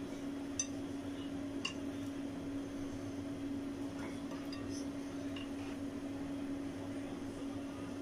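Steady low hum of a kitchen motor or fan, with a few light clicks and taps as chopsticks set chicken wings down on a ceramic plate: two sharp clicks near the start, fainter taps later.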